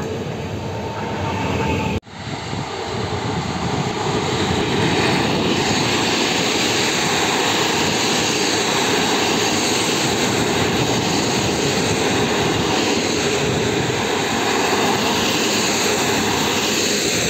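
A long-distance passenger train's coaches run past close by, making a steady, loud rush of steel wheels on rails. It starts at a hard cut about two seconds in; before that, briefly, an electric multiple unit pulls away.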